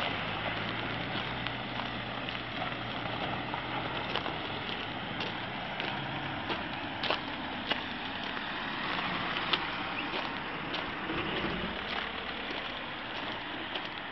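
Road traffic: a car engine's low hum passing and fading out about halfway through, over a steady rushing hiss with scattered sharp clicks.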